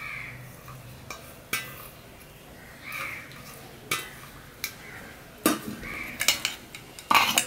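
Stainless-steel bowl and plate clinking and scraping as curry is scraped out of the bowl by hand, with scattered sharp metallic clicks and a loud clatter near the end as the bowl is set down on another steel bowl. A crow caws a few times in the background.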